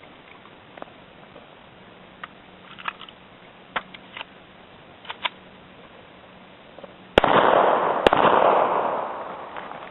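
Two pistol shots about a second apart, each followed by a long echo, after a few faint clicks of handling.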